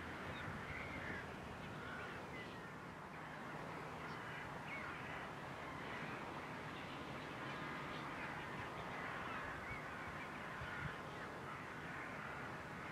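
Many birds calling in short, scattered chirps and caws over the low, steady drone of a tractor engine.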